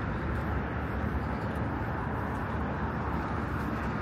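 Steady outdoor city-park ambience: an even, low rumble with no distinct events.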